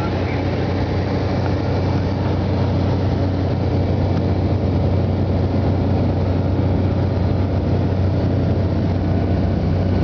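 Steady engine drone with a strong low hum and constant rushing noise, heard from inside a moving vehicle's cabin.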